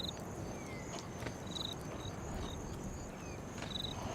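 Quiet outdoor ambience with short high chirps, likely insects, four or five times over a faint steady high hum.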